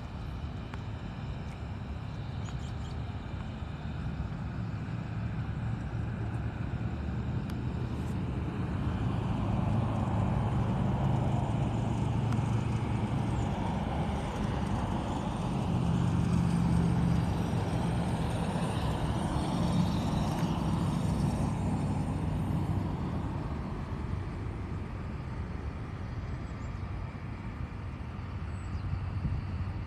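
Low engine rumble of a motor vehicle, building over several seconds, loudest about midway, then slowly fading.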